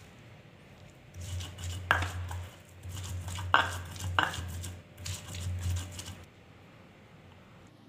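Stone pestle grinding red chillies and salt in a stone mortar (Indonesian cobek and ulekan): a rough, crunchy rubbing of stone on stone with a few sharp knocks, starting about a second in and stopping about six seconds in.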